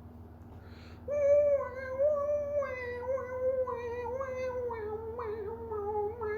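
A long, wavering, voice-like wail begins about a second in and is held at a fairly steady mid pitch, with small slides and catches, until the end. A low electrical hum runs underneath.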